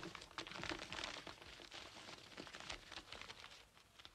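Faint rustling and crinkling of a sheet of paper handled in the hand, a run of soft crackles that thins out after about three seconds.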